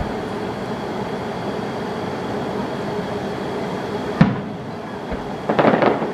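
Fireworks: one sharp bang about four seconds in, then a quick cluster of crackles near the end, over a steady background rumble.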